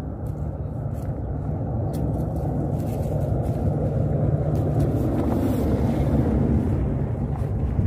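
Low steady rumble of a running engine, growing louder toward the end and cutting off abruptly.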